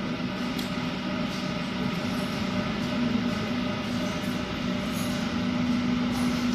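Vertical glass washing machine running: a steady machine hum with a constant low tone over an even hiss.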